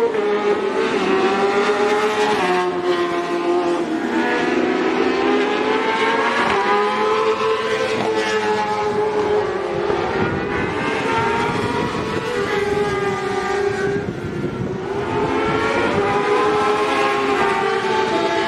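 Racing sport motorcycles' engines at high revs on the circuit, their pitch rising and falling over and over as the bikes accelerate, shift and pass.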